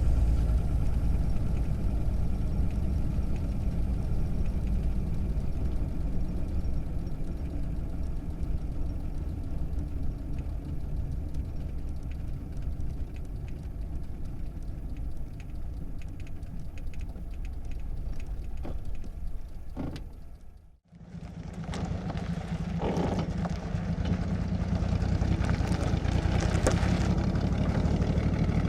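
1937 Plymouth's flathead straight-six heard from inside the cabin, running at speed and then decelerating, growing gradually quieter. After a brief break about three-quarters of the way in, the engine idles steadily, with a few short clicks.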